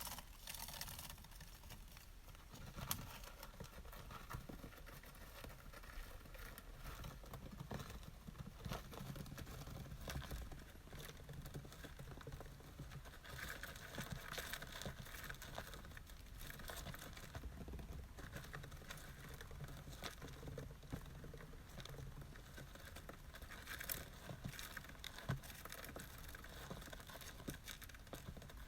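Sawdust bedding being scratched and kicked about by a small pet rodent: faint, continuous rustling and scraping with scattered sharp clicks.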